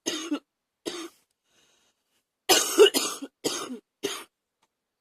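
A woman's wet bronchitis cough. Two coughs, then after a pause of about a second and a half, a quick run of four coughs in a fit.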